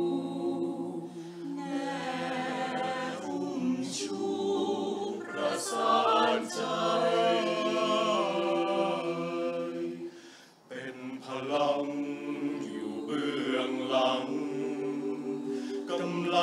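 Mixed-voice a cappella choir singing in layered, sustained chords, with a short break between phrases about ten seconds in.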